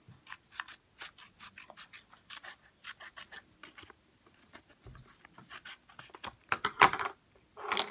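Small scissors snipping through paper, cutting around a paper circle in a run of short crisp snips, louder near the end.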